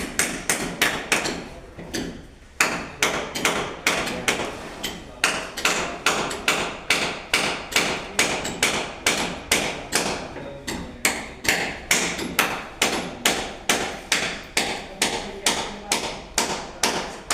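Hammer blows struck in a steady rhythm, about three a second, with a short pause about two seconds in.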